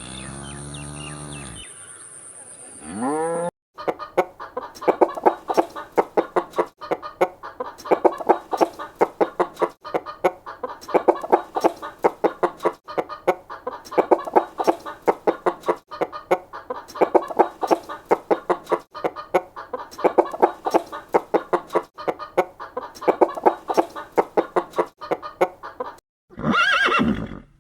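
A cow lowing briefly at the start. Then a flock of chickens clucking continuously for about twenty seconds, in rapid pulses. A short rising-and-falling call comes near the end.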